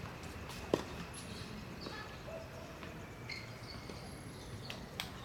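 Steady outdoor background noise with a few scattered short knocks on the court, the sharpest about three-quarters of a second in.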